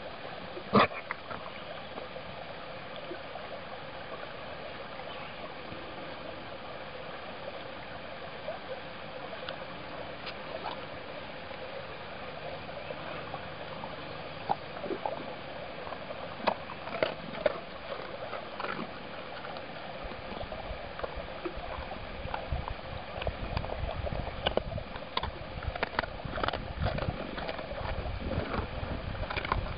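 Siberian husky chewing a hard dog biscuit: scattered sharp crunches over a steady background hiss, with a low rumble coming in after about twenty seconds.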